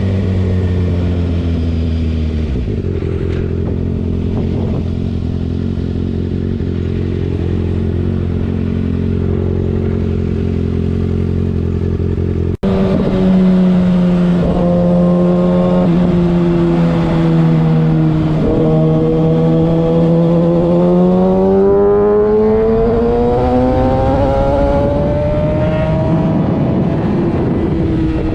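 Kawasaki ZX-6R 636 inline-four engine running under way, its note steady at first. After a brief dropout about halfway, the engine note dips slightly, then climbs steadily as the revs rise, and drops again near the end.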